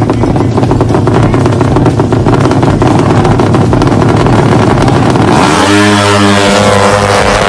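Two-stroke drag motorcycles held at high revs on the start line, a dense crackling exhaust note, then launching about five and a half seconds in, the engine pitch climbing as they accelerate away.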